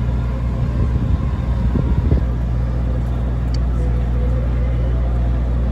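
Ferryboat's engine running with a steady low drone.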